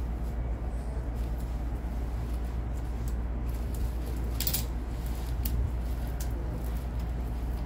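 A steady low hum, with scattered light metallic clicks of a surgical hemostat being handled; the sharpest click comes a little past halfway.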